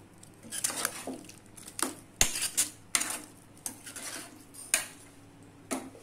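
Steel ladle stirring a thick chicken curry in a metal kadai, scraping and knocking against the pan in irregular clinks, the sharpest about two seconds in.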